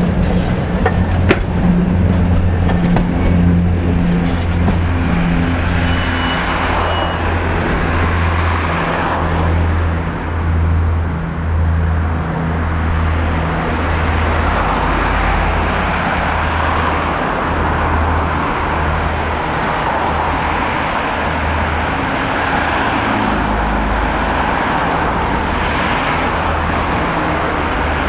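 Low hum pulsing about once a second from a standing Ganz articulated tram, over the wash of road traffic.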